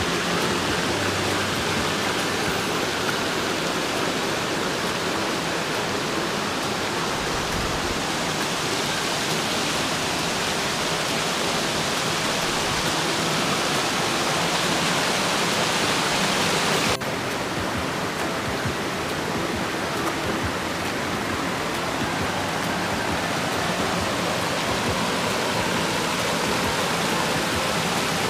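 Waterfall rushing steadily as the water pours over a rock ledge. About two-thirds of the way through the sound drops slightly and turns a little duller.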